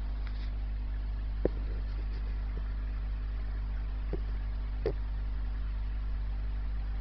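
Steady low electric hum of an aquarium pump running, with three short clicks partway through.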